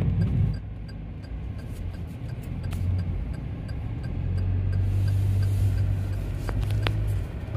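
Car driving, a low steady rumble of engine and road noise, with a stronger low hum for a few seconds in the second half.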